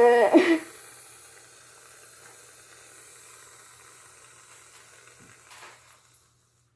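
Aerosol can of shaving cream spraying foam: a faint steady hiss that stops shortly before the end.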